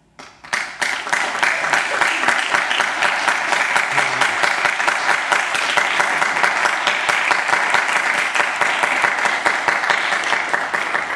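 Audience applauding: dense clapping breaks out suddenly right after the music ends, holds steady, and tapers off near the end.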